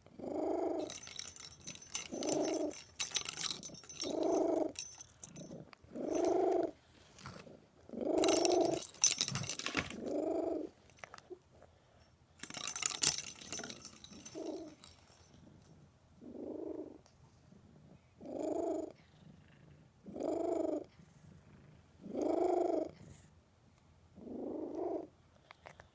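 A cat purring loudly in a steady rhythm, one swell with each breath about every two seconds. Small bells in toy balls jingle several times during the first half.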